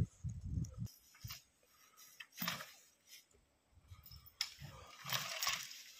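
Dry leaf litter rustling and crunching in irregular spells as a draft horse skids a log across the forest floor and people walk through the leaves, with a few low thumps in the first second.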